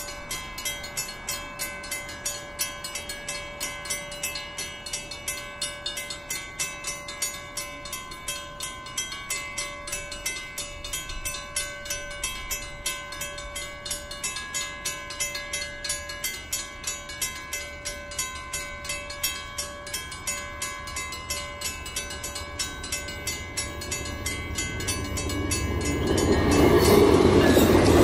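Level-crossing warning bell clanging steadily, about two to three strikes a second, as a VIA Rail passenger train approaches. About 26 seconds in, the train reaches the crossing and its loud rushing rumble swamps the bell as the locomotive and stainless-steel coaches pass.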